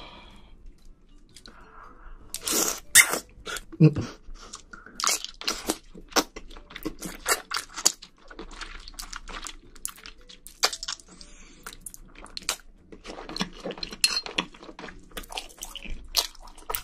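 Close-miked mouth sounds of chewing thick Chinese glass noodles, which the eater feels are undercooked: many sharp, irregular wet clicks and crunches, loudest about three to four seconds in.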